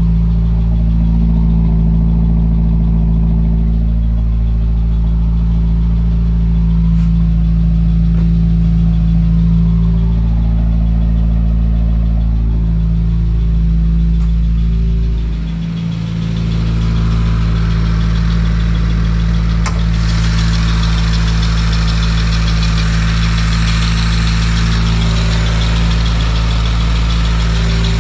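2017 Subaru WRX's turbocharged flat-four engine idling roughly on a cold start, with cylinder 3 misfiring. About halfway through, the idle sags briefly and recovers, and a steady hiss joins in soon after.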